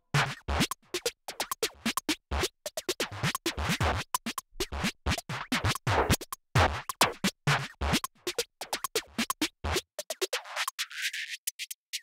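Electronic music in a glitchy, stuttering passage: irregular clicks and short noisy hits with dead silence between them. About ten seconds in, the low and middle range drops away, leaving only thin high ticks.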